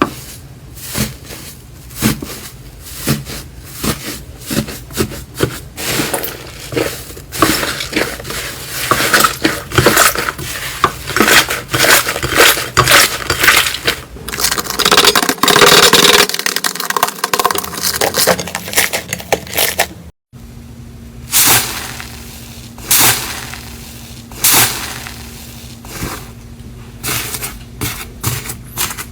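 Slime being pressed and squeezed, giving a run of sharp crackling pops and clicks that grow dense and loud in the middle. There is a brief dropout about twenty seconds in, after which the pops come sparser over a faint steady hum.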